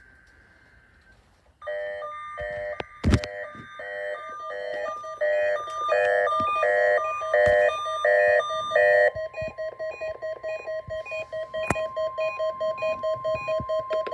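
Electronic alert beeping in a repeating pattern of several tones starts about a second and a half in, with a sharp click about three seconds in. About nine seconds in, the beeping turns into faster, even beeps over a steady high tone: a NOAA Weather Radio warning alarm sounding during a weekly test.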